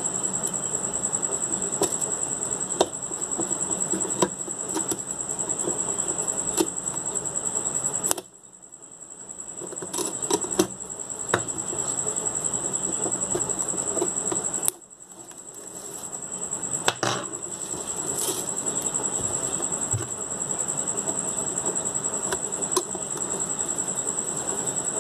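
Irregular clicks and short scrapes of metal tweezers working against the plastic rim of a quartz wall clock as its clear front cover is pried loose. A steady high-pitched whine runs underneath and cuts out suddenly twice.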